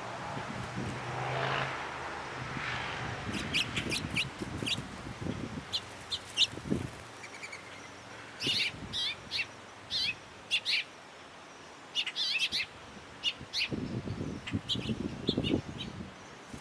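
Wild birds chirping: short, high calls in quick clusters through most of the stretch, with low rumbling noise near the start and again near the end.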